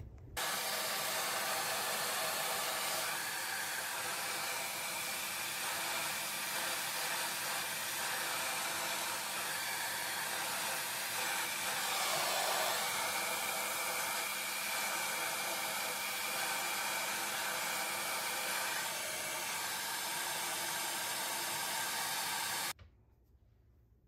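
Somoya handheld hair dryer blowing steadily, a constant rush of air with a faint motor whine in it. It starts abruptly just after the start, briefly changes in tone about halfway through, and cuts off abruptly shortly before the end.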